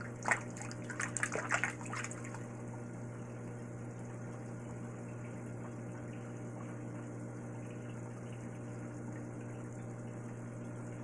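Fish tank's water pump running steadily with a low hum and flowing water. In the first two seconds there are a few brief splashes and taps as a hand works at the water's surface.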